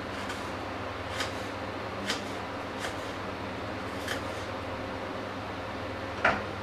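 Kitchen knife chopping on a wooden cutting board: about five sharp, irregular knocks, the loudest near the end, over a steady background hum.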